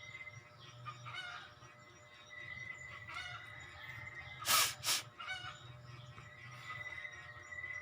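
Background music with a steady tone, over which fowl honk several times. About halfway through come two short, loud hissing blasts less than half a second apart.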